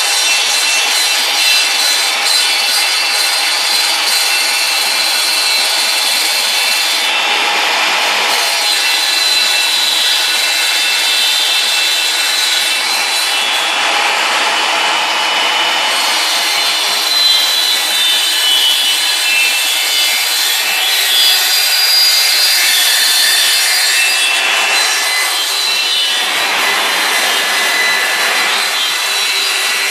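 Homemade wood lathe with a built-in saw running and cutting wood: a steady rasping cut with several louder, coarser stretches.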